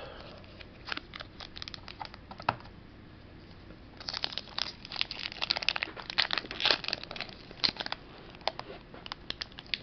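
Foil booster pack wrapper crinkling as it is handled: a few scattered crackles at first, then dense crinkling from about four seconds in.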